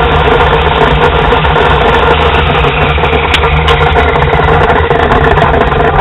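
An engine running steadily at idle, loud and unchanging. Two light taps a little past halfway through, from a hatchet working at the cottonwood cant.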